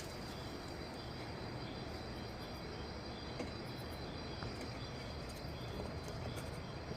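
Night chorus of rainforest insects: a steady hiss with a faint high chirp pulsing about twice a second and a thin continuous high trill.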